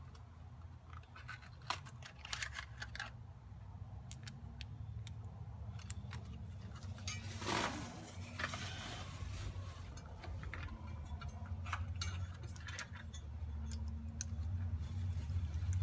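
Hand tools, a socket ratchet among them, clicking and clinking against metal while spark plugs are worked on. A steady low hum runs underneath and grows louder near the end, and there is one short rushing sound about halfway through.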